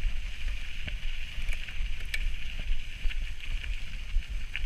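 Mountain bike rolling over a gravel path: wind buffeting the camera's microphone as a low rumble, with tyre noise and a few small clicks and rattles from the bike.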